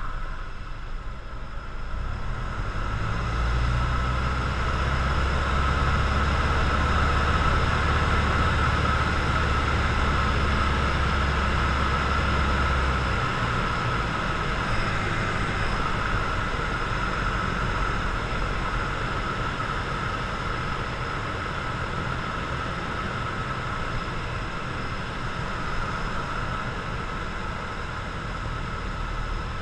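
Cessna 172's piston engine and propeller droning steadily, heard inside the cockpit with a rushing airflow hiss. A deeper, stronger engine note comes in about three seconds in and drops away about thirteen seconds in.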